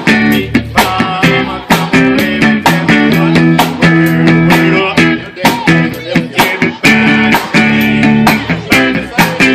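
Music with electric guitar and a steady drum beat, in a blues style.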